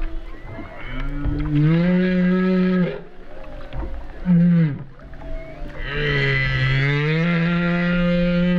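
Humpback whale calls: a moan of about two seconds that rises in pitch, a short call that drops sharply, then a longer moan that rises and holds steady. Water sloshing and knocking on the camera near the start.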